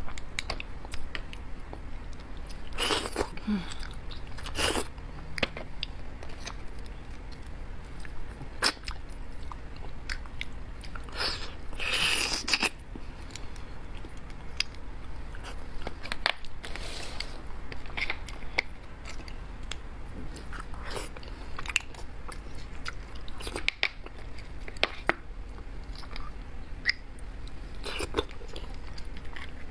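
Close-miked eating of roasted beef marrow bones: chewing and biting, with many sharp clicks scattered throughout and a few longer noisy stretches, the longest about twelve seconds in.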